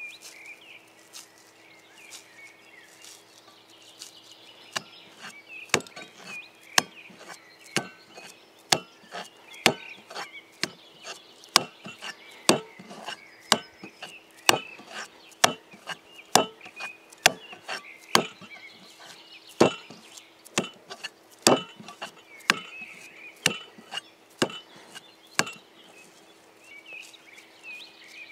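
An axe chopping wood with steady, evenly paced strokes, about one a second. About twenty blows begin roughly five seconds in and stop a few seconds before the end, with birds chirping throughout.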